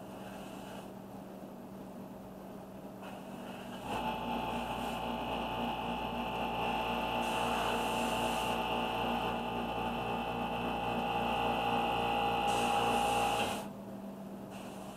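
Airbrush spraying paint: a steady hiss of air that starts about four seconds in and cuts off sharply near the end, over a steady low hum.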